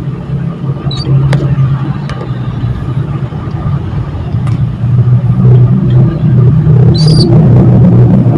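A loud, steady low rumble dominates. Over it come a few short, high canary chirps, about a second in and again near the end, along with a few faint clicks.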